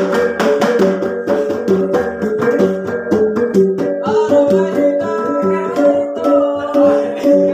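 Gong ensemble: several hand-held and floor-set gongs struck in a fast interlocking, repeating rhythm, their tones ringing on, with a small stick-beaten drum. Voices call out over the gongs from about four seconds in until near the end.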